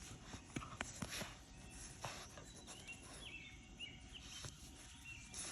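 Quiet outdoor ambience with a few faint, short, high chirps in the second half and scattered small clicks.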